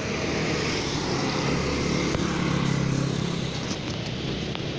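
City street traffic with a motorcycle engine running close by, swelling in the middle and easing off again.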